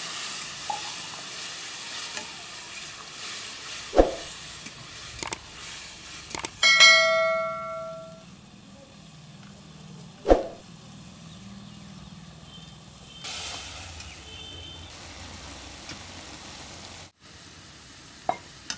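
Tomato paste and onion masala sizzling in a metal kadhai as it is stirred with a ladle, the sizzle dying down about halfway through. Two sharp knocks of the ladle against the pan, and about seven seconds in a metal vessel clangs and rings briefly.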